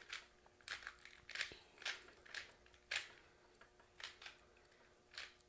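A small plastic 3x3 puzzle cube being scrambled by hand: its layers click and scrape as they are twisted, in quick irregular turns about two a second. The turning is rough, the cube's turning quality being low.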